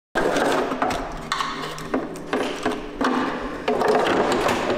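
Carbon-fibre motorcycle tail section being handled and pressed into place on the frame: repeated hollow knocks, clicks and rubbing of the panel.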